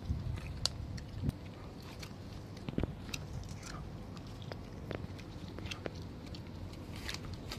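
Cats eating dry kibble: irregular small crunches and clicks as they chew.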